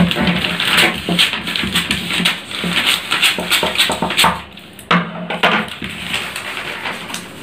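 Large scissors snipping through folded newspaper, with the paper crackling and rustling as it is cut, then handled and smoothed flat.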